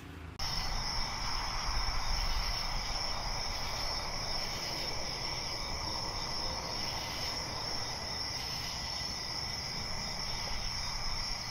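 Crickets chirping steadily in a night ambience, starting about half a second in after an abrupt cut.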